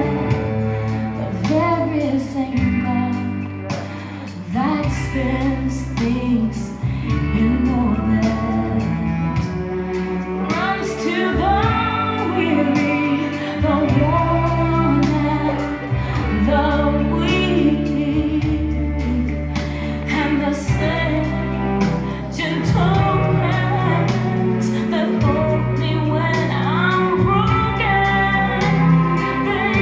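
Gospel music: a woman singing with bending melodic runs over held bass notes.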